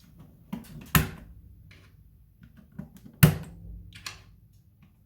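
Keycaps being pushed back onto mechanical keyboard switches, giving sharp thumps: two loud ones about a second and three seconds in, with lighter knocks between. Each press sets the desk vibrating, leaving a low hum after the thump.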